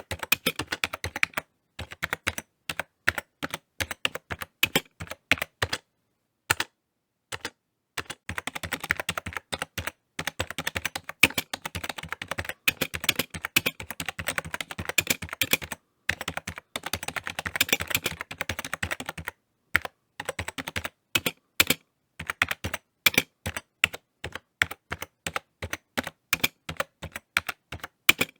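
Typing on a computer keyboard: quick runs of key clicks in uneven bursts, broken by short pauses of a second or so.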